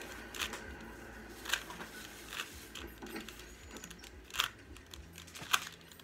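Small plastic puzzle cube being turned by hand: irregular sharp clicks and clacks as its layers are twisted, with a few louder snaps.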